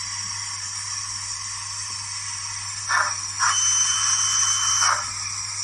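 Hornby W1 model steam locomotive hissing over a steady background hiss: a short hiss about three seconds in, then a longer, louder hiss with a faint steady whistle-like tone for about a second and a half.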